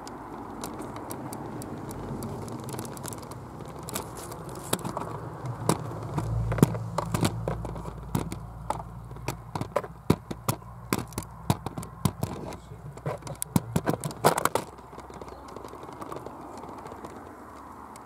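Handling noise from a camera hoisted on a tripod lashed to a stick: an irregular run of sharp clicks, knocks and scrapes with a low rumble, stopping a few seconds before the end.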